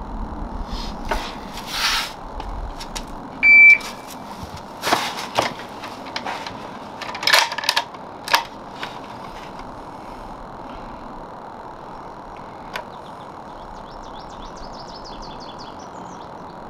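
A shot timer beeps once, a short steady high tone about three and a half seconds in, signalling the start of a timed kneeling drill. A run of knocks and rustles follows as the shooter drops to his knee and settles the rifle onto its rest bag, then it goes quiet apart from faint high chirps near the end.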